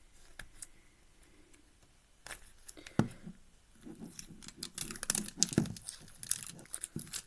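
Adhesive tape being peeled and torn off a 5x5 puzzle cube, crinkling and ripping. Only a few faint clicks at first, then from about two seconds in a busier crackle of tape pulling and tearing that gets louder toward the end.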